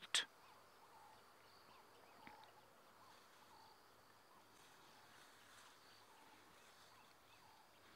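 Near silence: faint bush ambience with a few faint chirps and a soft brief sound a little over two seconds in.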